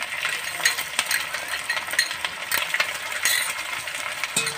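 A spoon clinking and scraping against a small cup and the rim of a metal kadai as green chilli paste is knocked into the pan, in irregular clicks, over a light sizzle of onions frying in oil.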